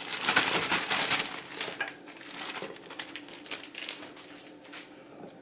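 Plastic bag of baby carrots crinkling as the carrots are emptied from it, dense for about the first two seconds, then thinning to faint rustles and light clicks.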